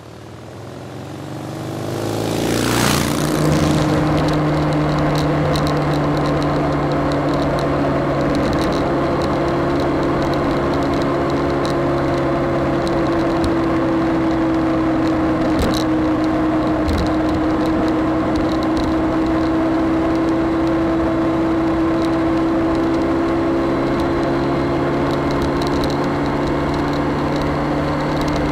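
BMW K1200S inline-four motorcycle engine running at steady cruising revs, its pitch barely changing, over wind and road noise. The sound fades up over the first few seconds, with a brief whoosh about three seconds in.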